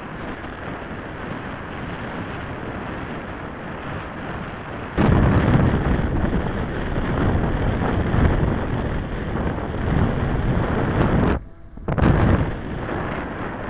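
Wind buffeting the microphone, a steady noise at first, then much heavier and gustier from a sudden jump about five seconds in, with a brief drop-out near the end.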